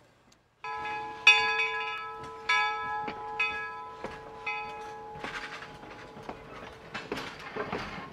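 Steam locomotive bell ringing about once a second, each stroke ringing on, on a slowly moving replica 1860s 4-4-0 steam locomotive. The bell stops a few seconds in, and the locomotive's chuffing and wheel clatter on the rails carry on as it rolls past.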